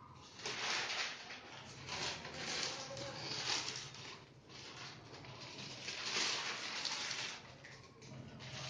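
Plastic wrapping on a large flat-screen TV panel rustling and crinkling in irregular bursts as the panel is handled and the wrap is worked open.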